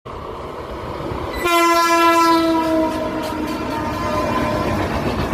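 Indian Railways train running with a steady rumble; about one and a half seconds in its horn sounds, one held blast that fades back into the running noise after a second or two.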